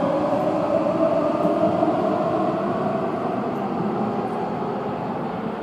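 Keihan 9000-series electric train pulling into the station to stop. Its motor whine falls slowly in pitch as it brakes, over the rumble of the wheels on the rails.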